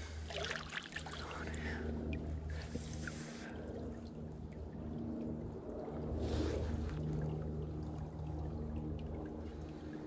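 Shallow creek water running and sloshing around a wader's bare legs, swelling briefly about two and a half seconds in and again around six seconds, over a steady low hum.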